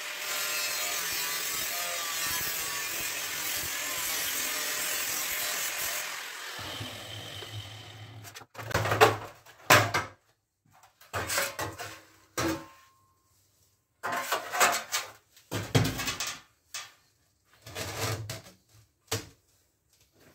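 A power tool cutting into a stock BMW E39 muffler's casing, running steadily for about six seconds and then fading out. After that come loud, irregular knocks and scrapes of metal being handled, with short silences between.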